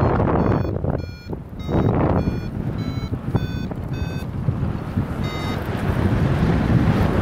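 Paragliding variometer beeping: a quick, uneven run of short beeps that shift in pitch, with a last one about five seconds in, the sign that the glider is climbing in lift. Loud wind noise rushes on the microphone.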